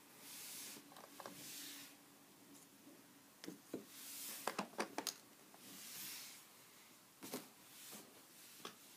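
Quiet handling noises as small plush toys are moved about and set down on a wooden desk: soft rustles, with a quick run of light clicks and taps about halfway through and a couple more near the end.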